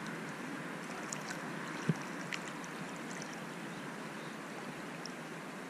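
Steady rush of river water around a wading angler's legs, with a brief low knock about two seconds in.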